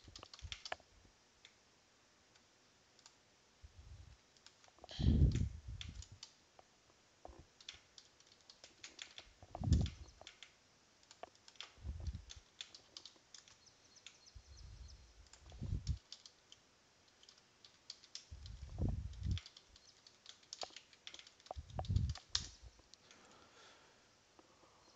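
Computer keyboard typing and mouse clicks, irregular light clicks, with a louder low, muffled thump every few seconds.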